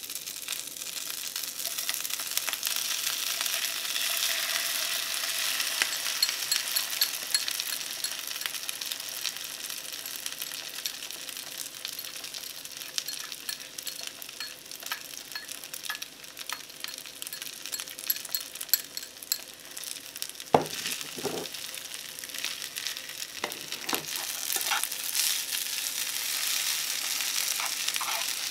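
Non-stick frying pan sizzling steadily on a portable gas stove as egg-coated rice is tipped in and stir-fried with chopsticks. Chopsticks click against the bowl and pan, with a few sharper knocks about two-thirds of the way through.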